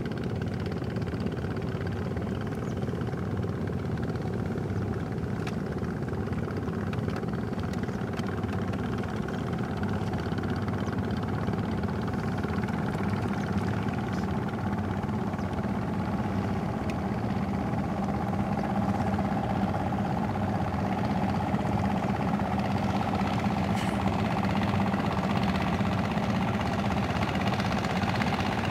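Motorboat engine running steadily, a little louder over the last several seconds.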